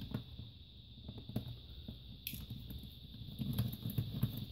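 Hands handling an HP Pavilion DV6 laptop's plastic bottom case: a few light plastic clicks and low rubbing, the rubbing heavier near the end.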